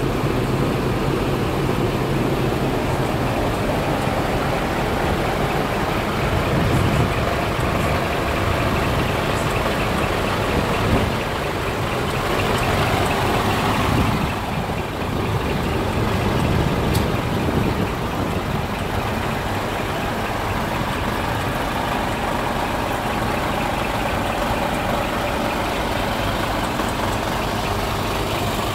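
Scania R380 truck's six-cylinder diesel engine idling steadily.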